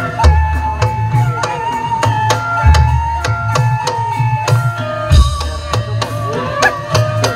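Live kuda kepang accompaniment music: rapid drum strokes over heavy bass-drum hits about every two and a half seconds, with a long held melodic tone on top.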